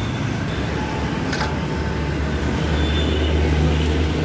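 Steady low rumble of motor traffic, with a deep engine drone growing stronger about halfway through as a vehicle passes close by. A single sharp click about a second and a half in.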